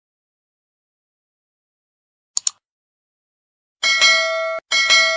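Sound effects for a subscribe-button animation: a quick double mouse click about two and a half seconds in, then a bell chime struck twice about a second apart, the second ringing on as it fades.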